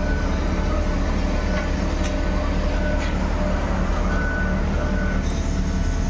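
Sany concrete pump truck's diesel engine running at a steady idle, with a deep, even hum. A few light metallic clicks come in near the end.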